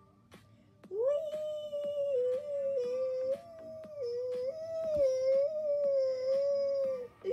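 An animal's long, wavering cry from a compilation clip played through a laptop speaker. It starts about a second in, holds for about six seconds with small rises and falls in pitch, and breaks off briefly near the end.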